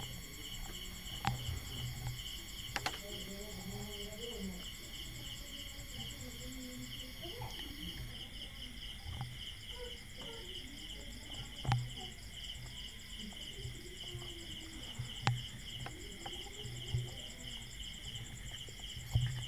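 Crickets chirping steadily in a pulsing high trill, with a few soft clicks and knocks, the sharpest about twelve seconds in.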